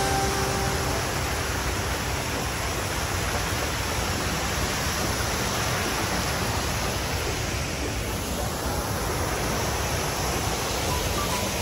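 Fountain water pouring over granite ledges and splashing into a pool, a steady rush of falling water.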